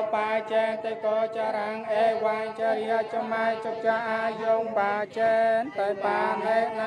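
Several voices chanting a Buddhist funeral recitation together in a steady sing-song, the lines running on with only brief breaks for breath.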